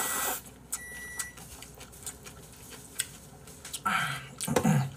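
A person eating Korean noodles: a loud slurp of broth or noodles at the start and another about four seconds in, with small clicks of chopsticks and bowl in between, then a short low hum just before the end.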